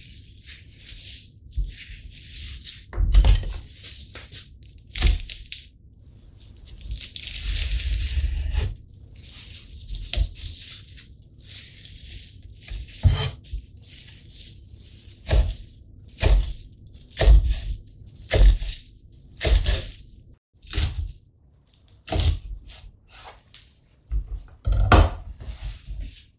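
Kitchen knife slicing a rolled stack of shiso leaves on a wooden cutting board: separate crisp cuts, each ending in a knock on the board, about one a second through the second half. Before that, the leaves rustle for a few seconds as they are stacked and rolled.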